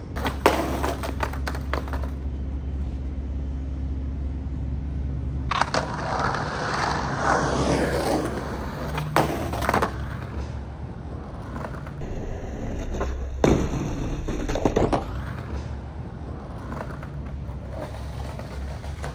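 Skateboard wheels rolling over rough asphalt, with several sharp clacks and knocks of the board hitting the ground.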